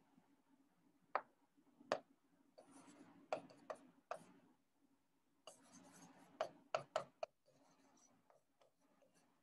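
Pen writing on an interactive whiteboard screen: faint scratchy strokes broken by sharp taps as each symbol goes down. The writing comes in two busy spells with a pause of about a second between them.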